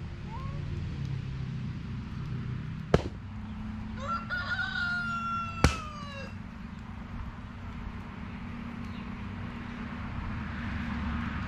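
A rooster crowing once, starting about four seconds in and lasting a little over two seconds, rising then holding before it falls away. Two sharp clicks stand out, one shortly before the crow and one near its end, over a steady low rumble.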